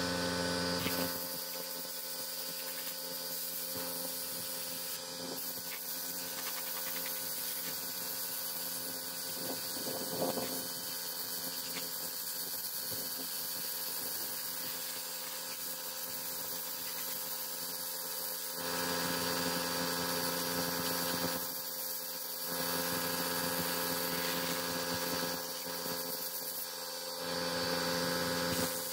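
A motor running steadily with a droning hum, its tone and load shifting a few times.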